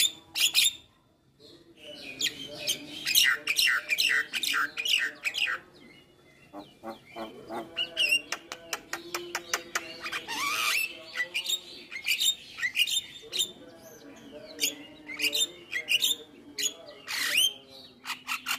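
Javan myna singing a fast, varied chattering song of rapid clicks and whistled notes, with short lulls about a second and six seconds in. Rising whistles come about ten and seventeen seconds in.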